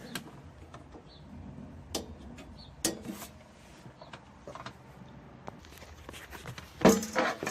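Scattered clicks and knocks of objects being handled, with a louder clatter near the end.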